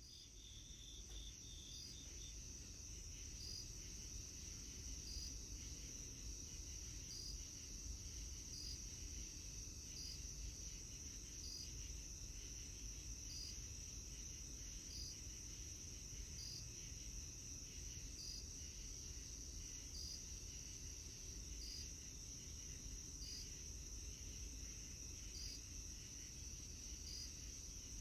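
Crickets trilling steadily, high-pitched, with a fainter chirp repeating about every second and a half, over a low rumble.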